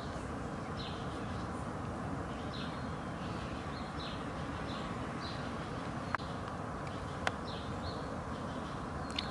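Small birds chirping in short, high notes about twice a second over a steady rushing background, with a few sharp clicks near the end.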